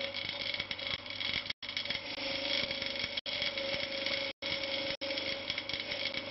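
Bench-mounted wire wheel running steadily as a spring leaf is held against it to clean off rust. The hum and scratching are broken by several brief gaps where the sound cuts out completely.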